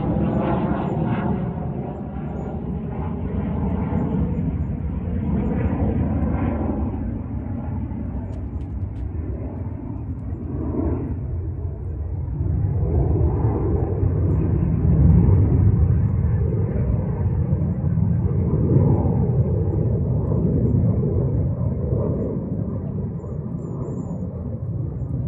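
RAAF F-35A Lightning II's single Pratt & Whitney F135 turbofan heard as a deep, continuous jet rumble during a display flight. It swells and fades as the jet manoeuvres, loudest about halfway through.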